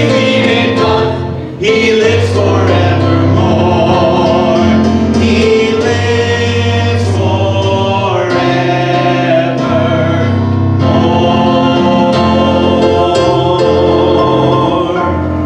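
A small mixed choir of men and women singing a hymn in parts, ending on a long held chord.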